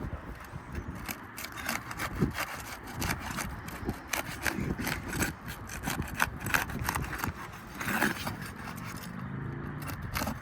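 Asphalt roof shingles being worked loose by hand and tool: irregular scraping and rubbing with frequent sharp clicks as the tabs are pried up and their seal broken, in a simulated repair that tests whether the shingles crease, lose granules or pull their nails.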